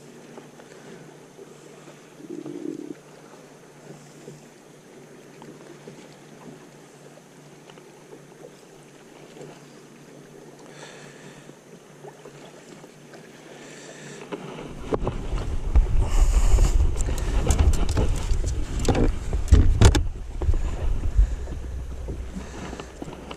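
Quiet lapping of water against a boat hull. About fifteen seconds in, a loud low rumble with scattered knocks and clicks starts, wind gusting on the microphone along with handling noise.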